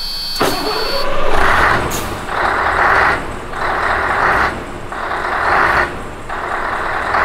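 A 2003 Scania 164L 480's 16-litre V8 diesel starting up and running, with a deep steady rumble. A steady electronic warning tone sounds at first and stops about a second in. From then on a hissing surge comes and goes about every second and a quarter.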